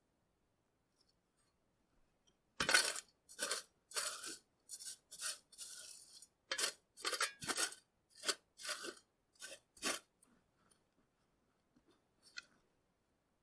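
A steel shovel scraping and digging into the old clay fill on top of a log hut: about a dozen quick scrapes over some seven seconds, starting a few seconds in, then one faint scrape near the end.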